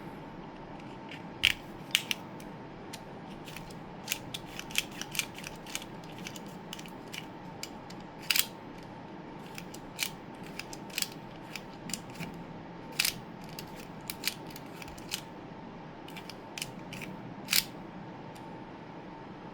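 Sharp clicks and snaps at irregular intervals, a few of them much louder, from a 3D-printed plastic utility knife being handled and its mechanism worked, over a faint steady hum.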